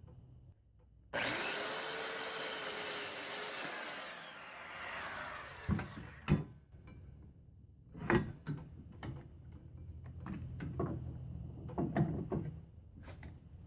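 A power saw cutting wood. The motor starts suddenly about a second in, speeds up, cuts for about four seconds and winds down. Then come several knocks of wood being handled and tapped.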